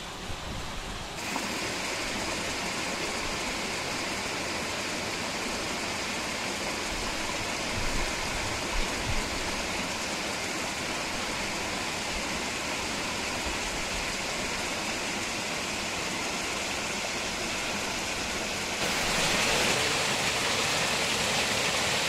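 Small rocky waterfall pouring and splashing steadily. The water gets louder about a second in, and louder and brighter again a few seconds before the end.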